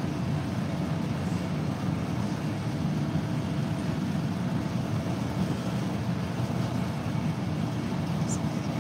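Steady low hum and rush of supermarket refrigeration and ventilation in front of a refrigerated juice case, unchanging throughout.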